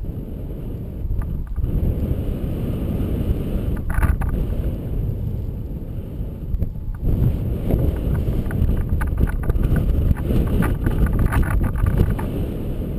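Wind rushing over an action camera's microphone in paragliding flight: a steady, loud low rumble of airflow buffeting, with a brief flutter now and then.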